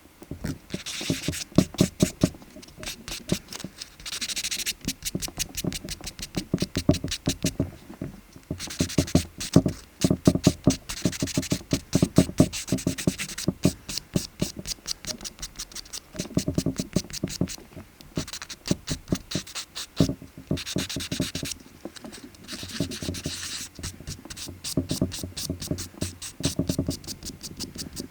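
A nail file or buffer rasping against a nail in runs of quick back-and-forth strokes, with brief pauses between runs.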